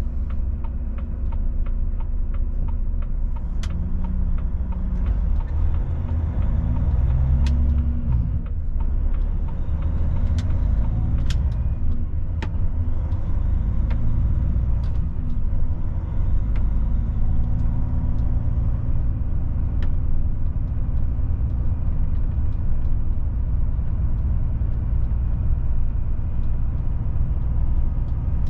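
Volvo FH truck's diesel engine running on the move, heard from inside the cab over a heavy low road rumble; the engine pitch shifts a couple of times as the truck changes speed, with a few scattered sharp clicks or knocks.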